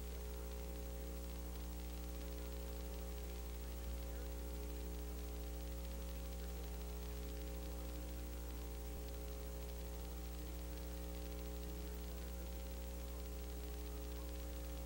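Steady electrical mains hum, a low buzz with many even overtones over a faint hiss of static, unchanging throughout.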